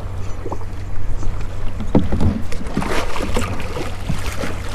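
Steady low hum of the boat, with water splashing from about three seconds in as a hooked fish thrashes at the surface beside the landing net.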